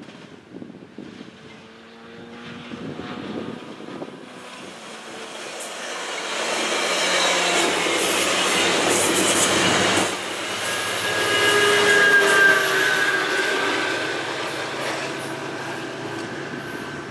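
A COASTER commuter train of bi-level passenger cars passing at speed on the rails, growing louder as it comes by and fading as it goes. Wheels rumble and clack on the track, with a thin, high wheel squeal about two-thirds of the way through.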